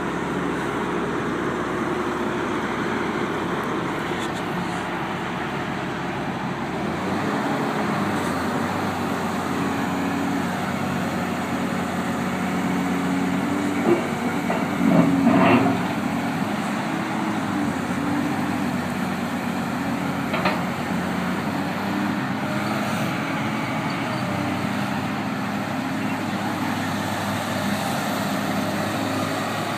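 Komatsu PC228USLC excavator's diesel engine running steadily, its note shifting a few times as the machine works, with a brief louder surge about halfway through.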